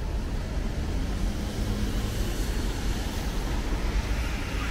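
Steady low rumble of city street noise, with traffic and wind on the microphone.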